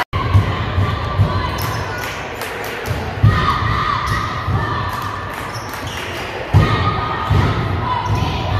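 Basketball bouncing on a gym floor during a game, the thuds echoing in the large hall.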